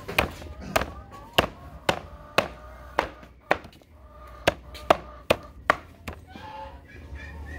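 A metal chopper striking ripe apples and guavas on a chopping board: about eleven sharp chops at an uneven pace, with a short pause about four seconds in.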